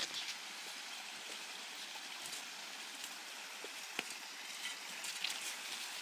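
Water trickling and splashing down a man-made backyard stream of stacked river rocks and slate slabs, a steady hiss of flowing water.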